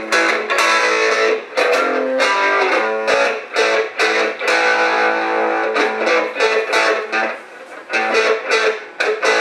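Electric guitar played through a small battery-powered Marshall mini amp: a run of quickly picked notes and chords, with little bass and a brief lull about seven and a half seconds in.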